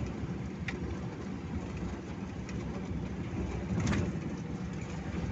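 Diesel engine of an 8x4 dump truck running steadily under load as the truck drives through drifted snow with its inter-axle differential lock engaged. There is a low rumble throughout, with two short knocks, one about a second in and one near four seconds.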